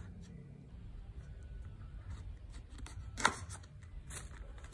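Scissors snipping at the seal of a cardboard retail box while the box is handled: scattered light clicks and rubbing, with one sharper snap a little over three seconds in.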